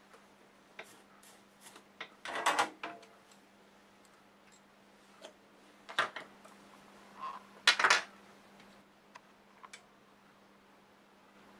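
Clicks and clatter of small metal tools and hardware being handled and set down on a workbench, loudest in two bursts about two and a half and eight seconds in, over a faint steady hum.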